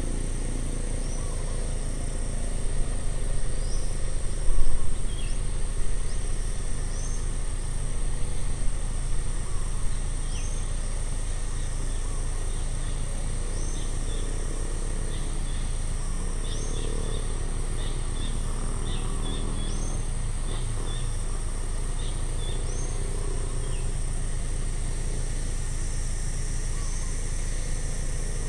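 Outdoor ambience: a bird repeats short rising chirps every second or two, and quicker chirping joins it in the middle. Under the bird there is a steady low rumble and a steady high hiss.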